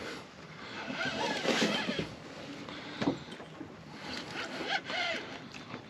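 Scraping and rustling as a long-handled landing net is worked over the side of a boat to land a catfish, with a single knock about three seconds in.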